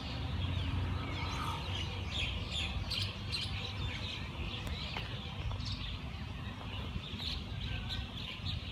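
Birds chirping over the low, steady rumble of a distant diesel train approaching slowly.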